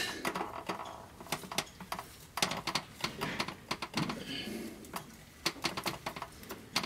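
Small, irregular metallic clicks and taps of a cotter pin being fitted through the clevis pin joining an air brake chamber's pushrod to the slack adjuster, worked in by hand and tool.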